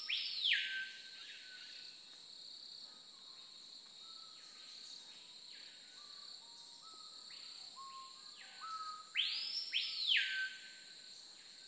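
A forest bird gives loud whistled calls that sweep up and fall back, once at the start and again twice about nine seconds in, with fainter held notes between. Under them runs a steady, high-pitched insect drone.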